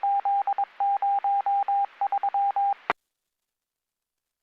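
A police radio channel carrying a string of short and long beeps at one steady pitch over radio hiss, in a Morse-code-like pattern. The transmission cuts off with a squelch click about three seconds in.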